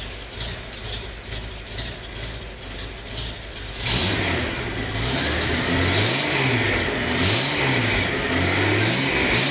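Datsun 240Z's straight-six engine running, then from about four seconds in revved up and down repeatedly in quick blips.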